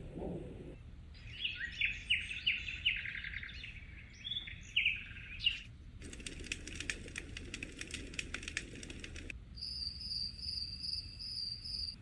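Sound programmes from a portable white noise machine, played one after another: a low throbbing heartbeat sound that stops just under a second in, then birdsong of quick down-sweeping chirps for about four seconds, then a dense fast crackle of clicks for about three seconds, and near the end a high, steadily pulsing insect-like trill.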